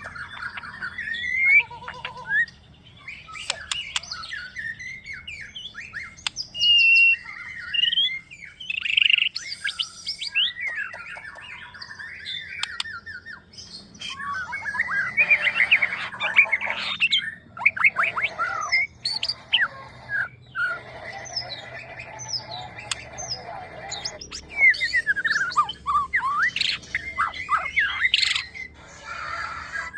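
White-rumped shama (murai batu) singing a varied song of rising and falling whistled notes, rapid trills and harsh squawky phrases, broken by short pauses; a young bird learning and mimicking other birds' calls.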